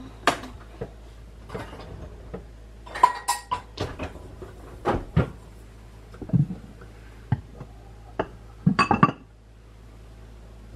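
A metal spoon stirring thick, bubbly batter in a glass jar, clinking against the glass in irregular taps. A quick run of louder clinks comes about nine seconds in.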